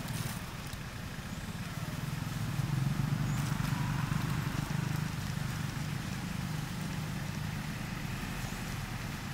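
Low, steady hum of a vehicle engine running nearby, growing louder over the first three seconds and then slowly easing off.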